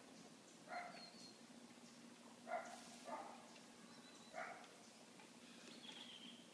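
Three short, faint animal calls about two seconds apart, over a faint steady hum and a few thin high chirps.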